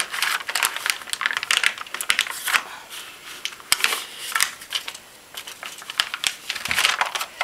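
Freezer paper rustling and crinkling in irregular bursts, with light clicks, as a paper-wrapped block of soap is worked loose and lifted out of a wooden mold.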